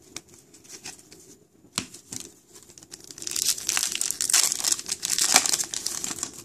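A trading card pack's plastic foil wrapper being torn open and crinkled. There are a couple of light clicks first, then a dense crackling from about three seconds in.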